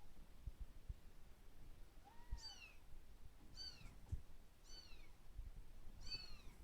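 Kitten meowing: four short, high-pitched meows about a second apart, each rising and then falling in pitch. A few soft low thumps come in between.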